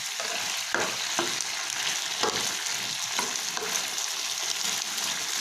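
Chicken adobo sizzling in a pan as it is stirred, with a steady hiss and a few light knocks of the utensil against the pan.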